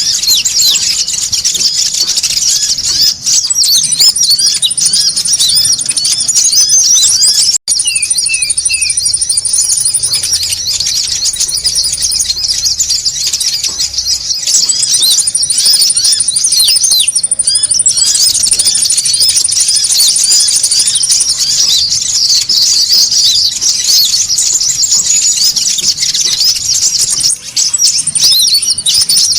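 Konin birds chattering noisily: a dense, high-pitched twittering of many quick calls, with long, steady, even high trills coming in several times over it. A recording used as a lure call to draw konin in.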